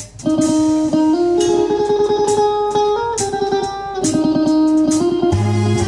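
Live band music: an amplified plucked lead string instrument playing a fast, rapidly picked melody line, with a bass coming in near the end.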